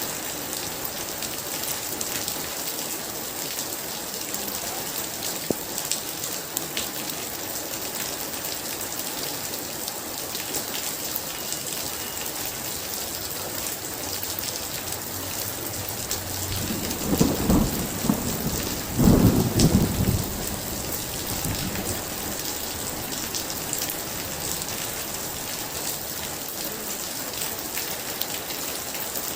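Heavy rain falling steadily, with a thunderclap a little past the middle: a low rumble builds, breaks into two loud cracks about two seconds apart, then dies away under the rain.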